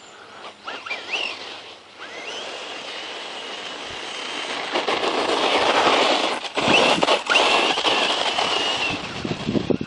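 Brushless electric motor of a 1/10-scale RC truck running, a high whine that rises and falls with the throttle over a rough rushing noise. It grows louder about halfway through, with two brief drop-outs where the throttle eases.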